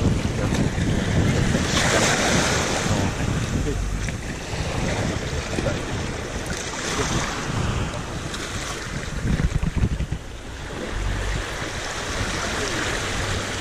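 Small waves washing in over the shallows at the water's edge, with wind rumbling on the microphone. The wash swells about two seconds in and again around seven seconds.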